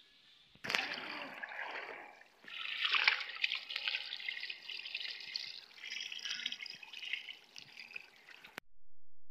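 Running water pouring and splashing over a plucked chicken carcass and a wooden board as the chicken is rinsed. It starts suddenly about half a second in and cuts off abruptly shortly before the end.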